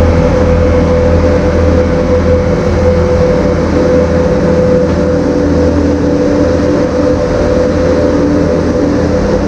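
Skid steer engine running steadily while scraping, with a steady whine held over the drone.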